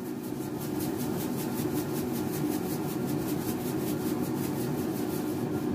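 Air fryer fan humming steadily while it preheats, with a quick, even rhythm of scratchy strokes, about seven a second, as salt is dispensed over a plate of raw eggs. The strokes stop near the end.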